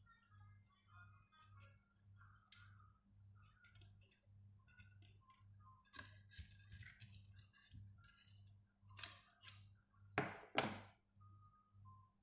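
Stiff metal wire being bent by hand and gripped with locking pliers: scattered small clicks, ticks and scrapes of metal on metal, with two louder scraping knocks about ten seconds in.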